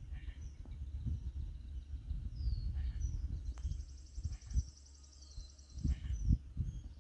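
Outdoor ambience by a lake: small birds calling with short high notes that fall in pitch, repeated every couple of seconds, and a buzzy high trill for about two seconds in the middle. Under them runs a steady low rumble with soft thumps, loudest near the end.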